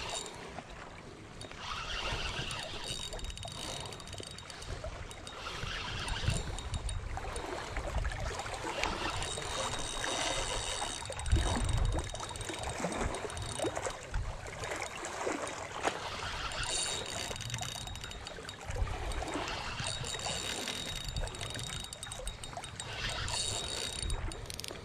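Water lapping and trickling, with wind rumbling on the microphone, while a fish is played on a spinning reel. A faint high whir from the reel comes and goes several times.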